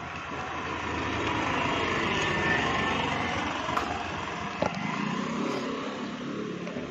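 A passing motor vehicle, its noise swelling over the first few seconds and then slowly fading. A few light metallic clicks come from steel gate-hinge blocks being set together.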